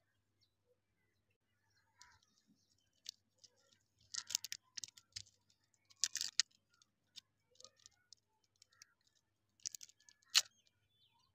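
A lollipop wrapper crinkling and crackling as fingers peel it off a chewy lollipop. The crinkling comes in irregular bursts, the loudest about four, six and ten seconds in.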